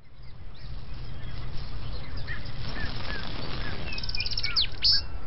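Forest ambience of birds chirping over a low steady rumble, with a quick cluster of sharper, brighter chirps near the end.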